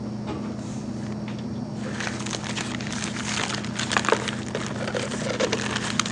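Thin clear plastic sheets rustling, crinkling and clicking as they are handled and pressed together while being glued into a cube, starting about two seconds in, over a steady low hum.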